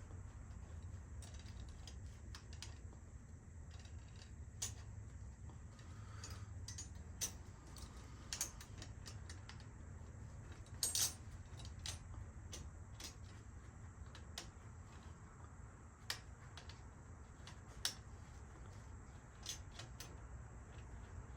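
Scattered sharp metallic clicks and clinks of bicycle parts and hand tools being handled during assembly, over a low steady hum.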